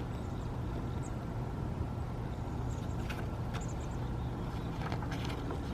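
Steady low background hum, with a few faint brief clicks about three and five seconds in.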